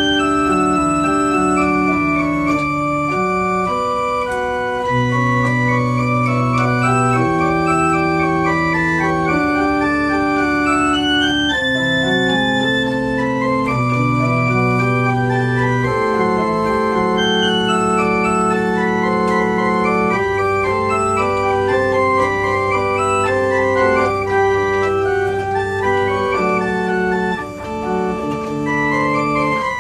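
Small pipe organ playing slow, sustained chords, with long-held bass notes moving every couple of seconds under shifting upper voices.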